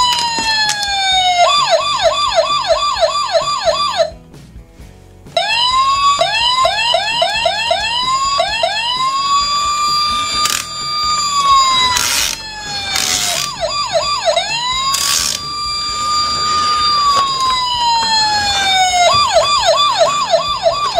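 Toy police car's electronic siren, switching between a slow falling wail and fast yelping sweeps of about four a second, with a short break about four seconds in. A few brief noisy bursts sound midway.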